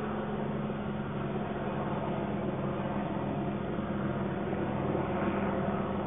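Steady rushing background noise with a low, even hum beneath it, swelling slightly near the end.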